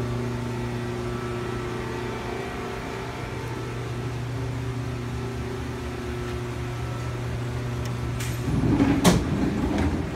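A steady low machinery hum. Near the end, a louder rumbling slide and clatter as the CNC lathe's sliding steel guard door is opened.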